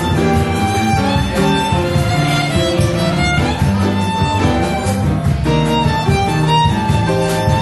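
Live band playing: a violin carries the melody over a double bass line and a drum kit keeping time with light cymbal strokes.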